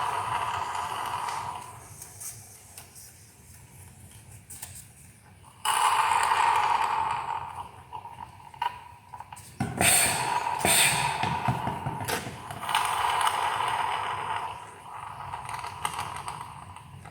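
Pressurised hissing from a spray nozzle in several bursts of a second or more, with small handling clicks between them, as oil and debris are blasted out of the engine's spark plug wells.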